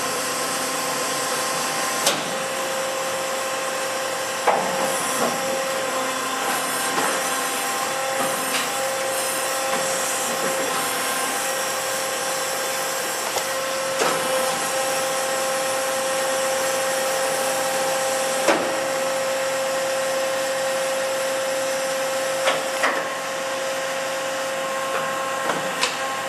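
The 60-tool chain magazine of a Daewoo ACE-H100 horizontal machining center running. It makes a steady mechanical whine, with a sharp click or knock every few seconds.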